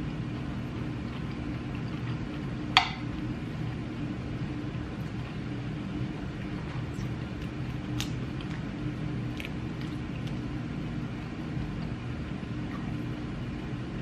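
Steady low room hum, with a sharp clink of a utensil against a dish about three seconds in and another about eight seconds in, and a few faint ticks between.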